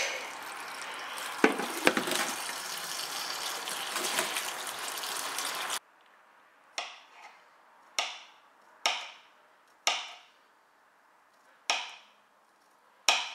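Tap water running into a stainless steel pot of sliced leeks, cutting off suddenly about halfway through. Then a kitchen knife thinly slicing a garlic clove on a worktop, six crisp cuts about a second apart.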